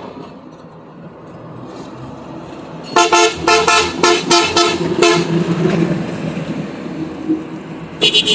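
Horns of passing road traffic: a run of short beeps, about three a second, lasting roughly two seconds. A vehicle then passes with a low rumble, and a higher-pitched horn starts near the end.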